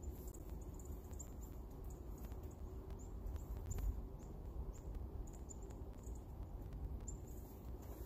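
Small songbirds giving short, thin, very high calls, each a quick falling chirp, scattered irregularly over a steady low outdoor rumble.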